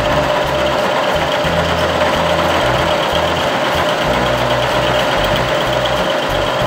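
Milling machine running, its end mill cutting a flat into a steel workpiece: a steady machining noise with a constant hum.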